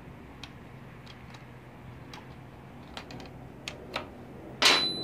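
Scattered light clicks and ticks of hands working the throttle cable fittings and linkage on a Honda Rebel 250's carburetor, with one louder sharp clack near the end that leaves a brief high ringing tone.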